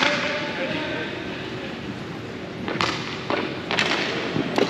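Background voices of spectators at a game, with about four sharp knocks or thuds from play in the second half.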